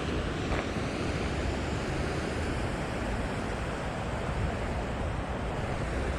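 Steady rush of a stream running high after rain, with wind buffeting the microphone as a low rumble.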